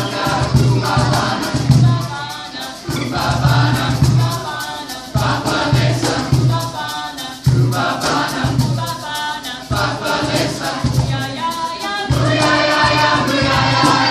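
Youth concert choir singing an African call-and-response song, solo lines alternating with the full choir's answers, over a steady rhythm of shaker-like percussion ticks.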